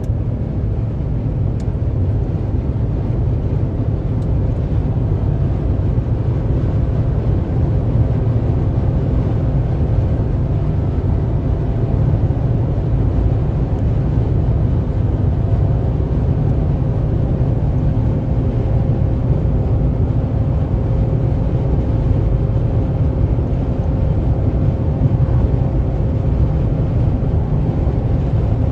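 Steady road noise of a car cruising at motorway speed, heard from inside: a continuous low rumble of tyres and engine with a faint steady hum.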